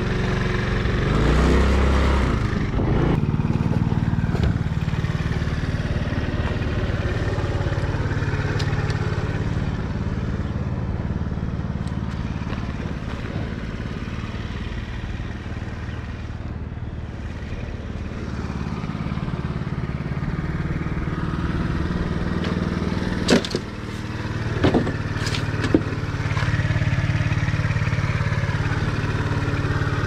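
An engine runs steadily with a low hum, and three sharp clatters come a little past two-thirds of the way through.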